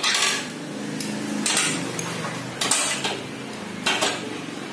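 Metal tools and small engine parts clinking and clattering in a metal parts tray, in four separate bursts about a second apart, over a low steady hum.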